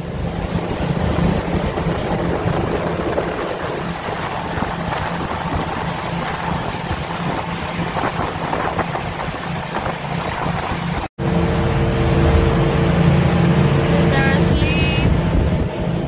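Ferry engine running steadily under a rush of wind and water. It cuts out for an instant about eleven seconds in, and a steady engine hum with a couple of held tones follows.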